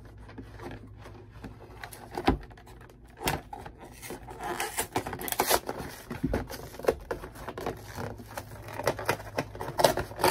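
Cardboard and plastic packaging of a Pikachu V Pokémon card box being handled and opened: rustling, tearing and scraping, with scattered clicks and a few knocks on the table.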